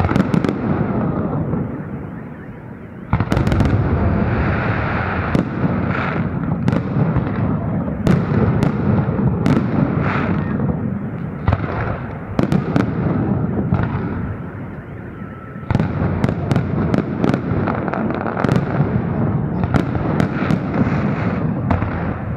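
Festive fireworks display: many sharp bangs of shells bursting, over a continuous crackling rumble. It fades into a short lull twice, about 2 seconds in and again around 14 seconds in, and each time the bangs start again abruptly.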